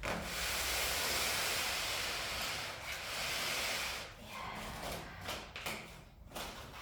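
Packaging being pulled off a new washing machine: a steady hissing rustle for about four seconds, then scattered rustles and light knocks.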